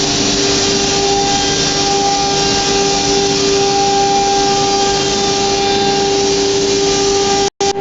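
CNC router's spindle running with a steady whine over a rushing noise, dropping out abruptly for a moment near the end.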